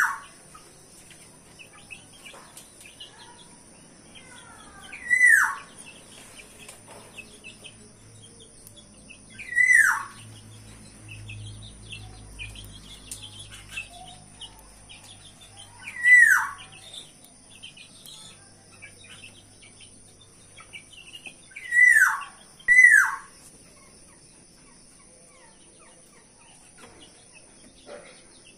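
Black-naped oriole (kepodang) giving loud, clear calls, each a single whistled note sliding downward. The calls come every four to six seconds, with two in quick succession near the end, over faint twittering of other small birds.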